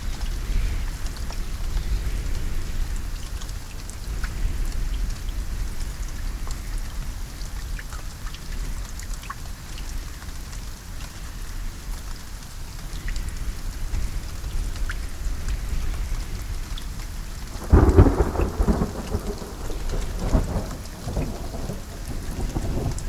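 Steady rain with scattered individual drops. About 18 seconds in, a sudden loud crack of thunder rolls on into a rumble for several seconds.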